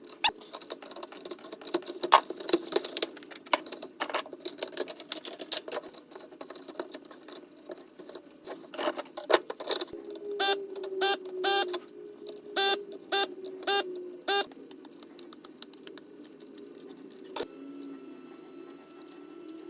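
Clicking and clattering of small plastic and metal parts being handled on a workbench during a GM instrument cluster repair. About ten seconds in comes a run of short electronic beeps, some in pairs. After a click near the end, a faint steady electronic tone follows.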